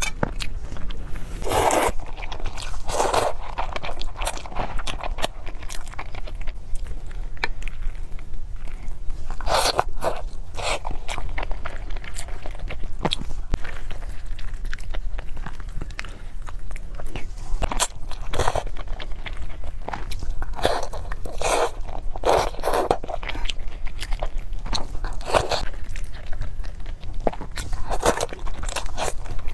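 Close-miked eating: a person biting and chewing food, mostly spicy fried noodles, in irregular clusters of short mouth noises every second or two. A steady low hum runs underneath.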